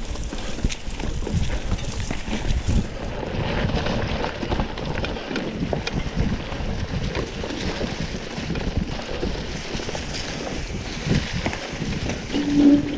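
Wind buffeting the microphone over a steady rumble and frequent small knocks and rattles from riding over rough ground. A short steady tone sounds for about a second near the end.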